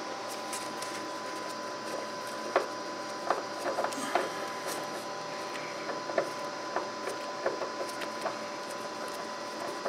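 Scattered light clicks and taps as a gloved hand works a spin-on hydraulic oil filter, trying to start it on its threads, over a steady background hum.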